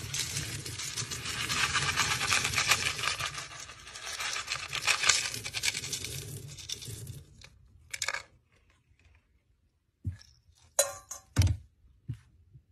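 Plastic scoop digging through a bin of dry pet kibble, the pellets rattling and shuffling for about seven seconds. Then a few separate sharp clicks and knocks near the end.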